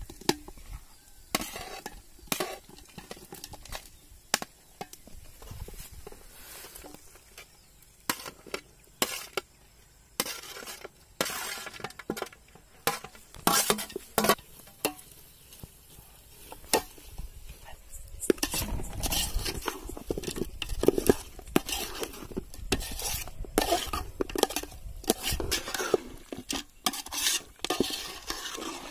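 A perforated steel ladle scraping and clinking against a steel plate and the rim of an aluminium pot as fried chicken pieces are pushed into the sauce, in many sharp knocks. From a little past halfway it turns to a denser stirring and scraping in the pot, with sizzling.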